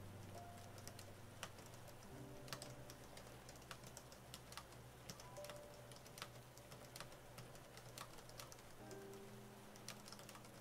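Keys clicking in an irregular run as someone types on an AlphaSmart portable word processor, over soft piano background music with held chords.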